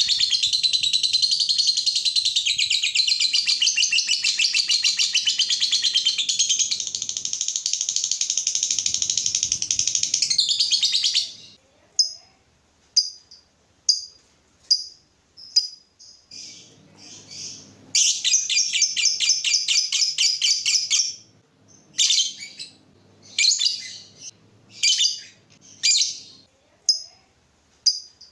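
Parrots chattering: a dense, rapid warble for about the first eleven seconds, then short single chirps about once a second, a second stretch of fast chatter past the middle, and more single chirps near the end.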